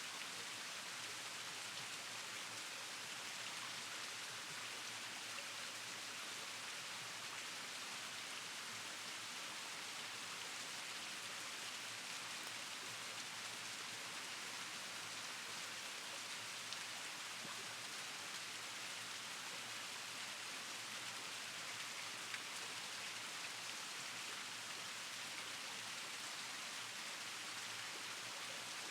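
Steady, even hiss that sounds like light rain, with a couple of faint ticks.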